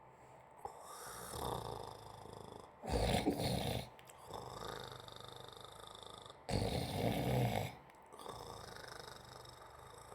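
A person snoring: two loud, rasping snores, each about a second long and some three and a half seconds apart, with softer breathing sounds in between.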